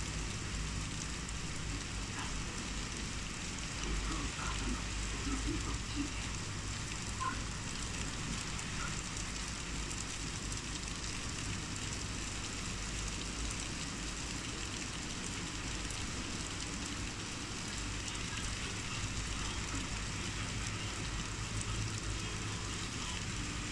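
Heavy rain falling steadily, a continuous hiss of rain on roofs and pavement, with a steady low rumble underneath.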